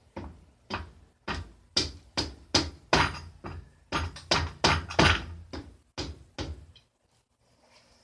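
A series of sharp knocks, roughly two a second, from parts of the engine being struck as it is worked apart, with the hardest blows in the middle.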